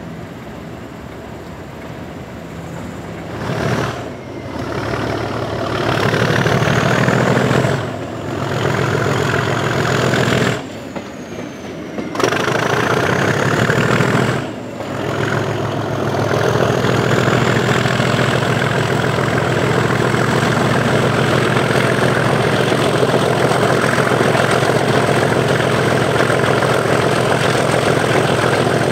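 Class 37 diesel locomotive's English Electric 12CSVT V12 engine working hard under power, the 'thrash' of a train being hauled. A high turbocharger whistle rises and falls over it. The power drops off sharply a few times in the first half, then holds steady and loud from about halfway.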